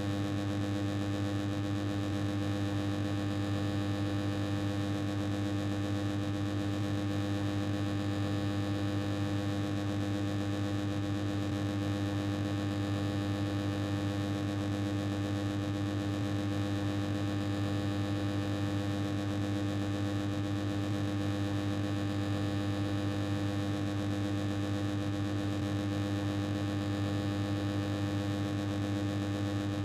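Noisy old air conditioner running steadily. A constant droning hum made of several held tones sits over an even hiss and does not change.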